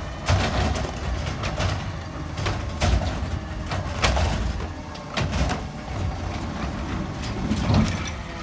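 McNeilus ZR automated side-loader garbage truck on a Crane Carrier LET2 chassis, engine running while its arm lifts a wheeled cart, dumps it into the hopper and sets it back down. Several sharp clanks and bangs of the cart and arm sound over a steady low engine rumble.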